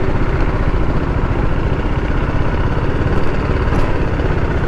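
TVS Apache RR 310's single-cylinder engine running steadily at low speed as the motorcycle rolls slowly.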